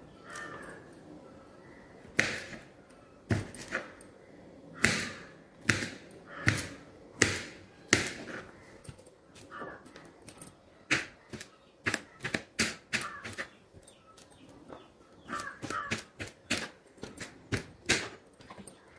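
Kitchen knife chopping okra on a plastic cutting board: sharp knocks of the blade striking the board. They come about a second apart at first, then in quicker runs of several chops a second.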